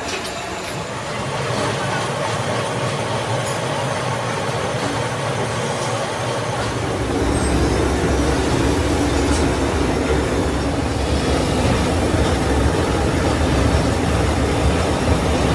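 Electric motor spinning a wire brush wheel while a steel motorcycle rear sprocket is held against it, a steady scrubbing grind of the finishing pass. About seven seconds in it becomes louder and heavier.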